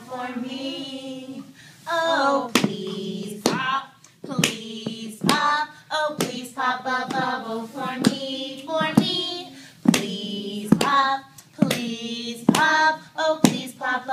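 Group of adults singing a children's class song, with steady rhythmic hand claps a little under a second apart.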